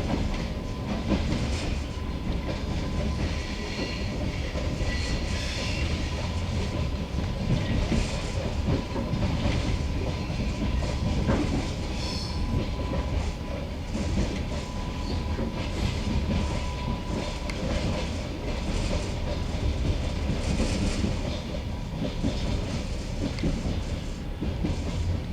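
Passenger train wheels clacking over rail joints and station points, over the steady rumble of the moving carriage, heard from aboard the train.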